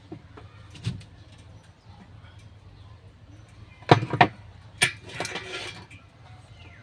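A few sharp metal knocks and clanks from welding work. The loudest is a quick double knock about four seconds in, followed by a short rasping noise, all over a steady low hum.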